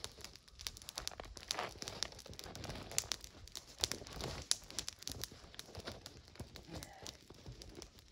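A small wood campfire crackling with irregular sharp snaps, mixed with rustling and crunching as a foam sit pad is laid on the snow and someone sits down on it.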